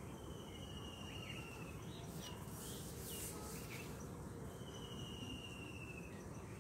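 Two high, trilled animal calls, each about a second and a half long and falling slightly in pitch. One comes at the start and one about four and a half seconds in, over steady low outdoor noise, with a short rustle between them.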